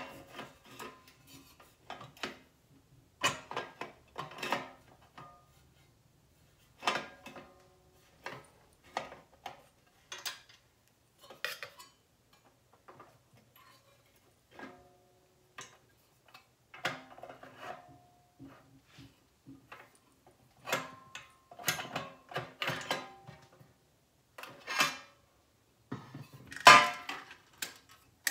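Stainless-steel parts of a home oil press being handled and fitted together: scattered metal clanks and clicks, some with a short ring, the loudest a few seconds before the end.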